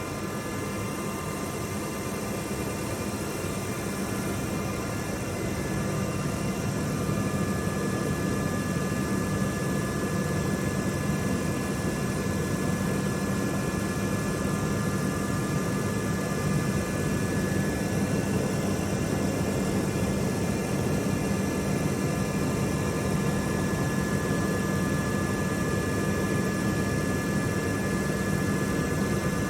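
Hermle C 400 U five-axis vertical machining centre running: a steady mechanical hum with several high steady whining tones, growing a little louder over the first few seconds.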